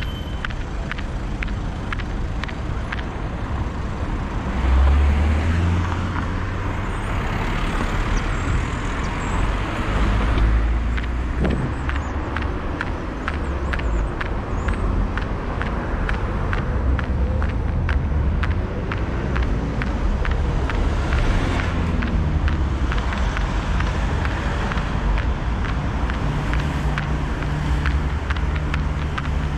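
Street traffic in the rain: cars passing on a wet road with a steady low rumble and hiss, swelling as vehicles go by about 5 and 10 seconds in, with light clicks and ticks running through.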